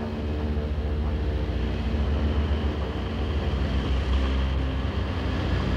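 Light plane's piston engine and propeller droning steadily, heard from inside the cabin.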